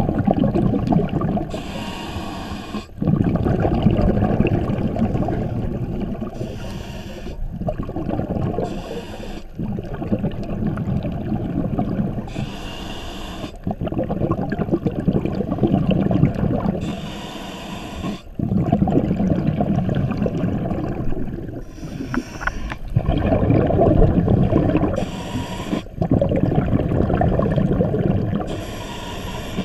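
Scuba diver breathing through an open-circuit regulator underwater: a short hissing inhale every three to four seconds, each followed by a long bubbling, rumbling exhale.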